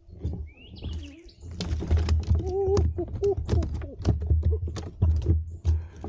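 Irregular knocks and clatter of a small crappie being landed and handled on a plastic fishing kayak, over a low rumble, with a few short wavering voice-like tones in the middle.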